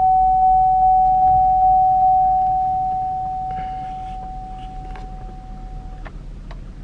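Car's warning chime from the driver's door speaker, set off by an ABS fault: one steady high beep pulsing about two and a half times a second. It grows fainter and stops about six seconds in.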